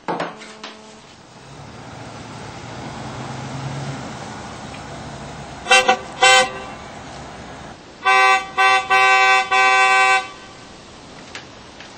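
A car horn honking: two short toots about six seconds in, then a run of four longer honks a couple of seconds later. Before the horn there is a thump, then a car engine running that swells over the first few seconds.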